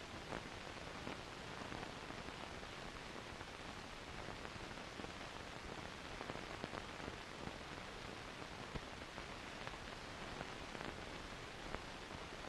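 Steady hiss with a few faint, irregular crackles: the surface noise of an old optical film soundtrack during a silent stretch.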